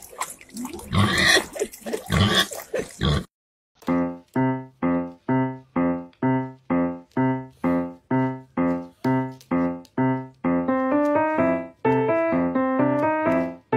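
A pig grunting with water splashing from a tap for about three seconds. It cuts off, and piano music starts: a repeated chord struck about twice a second, which turns into a moving melody about ten seconds in.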